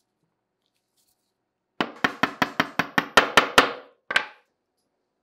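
A quick run of about ten sharp knocks, roughly five a second, then one more knock half a second later, made during work on a small steel airgun part.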